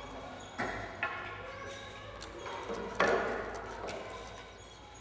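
Three sharp knocks ringing out in a bare, echoing room: one about half a second in, one about a second in, and a louder one about three seconds in that dies away over a second.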